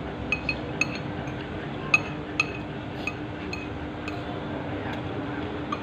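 Metal spoon and fork clinking against a bowl of noodles while eating: about a dozen short, irregular clinks with a brief ring, the sharpest about two seconds in, over a steady low hum.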